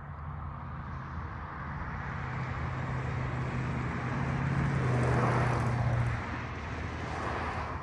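A vehicle passing by, its noise building to a peak about five seconds in, the low hum dropping slightly in pitch as it goes by, then easing off.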